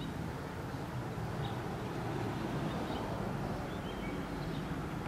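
Steady low background rumble with a few faint, short chirps scattered through it.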